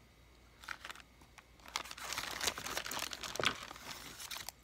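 Packing wrap crinkling and rustling in the hands as a lock is unwrapped, starting about a second in and growing busier towards the end.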